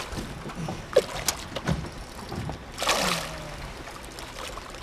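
Small knocks and clicks on a fishing boat, with a short burst of water splashing about three seconds in.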